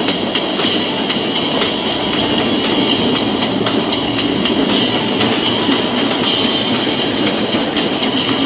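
Wheeled sled running down a fibreglass alpine-slide trough: a steady, loud rolling rumble and rattle with a constant high whine and scattered clicks from the wheels on the track.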